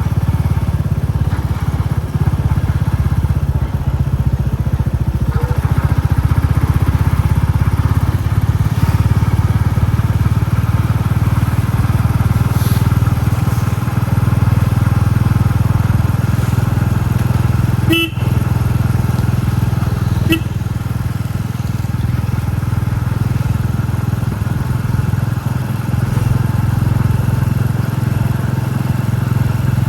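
Royal Enfield Classic 350's single-cylinder engine running steadily under way, with its low, even thump. Two short horn beeps sound about two seconds apart, a little past the middle.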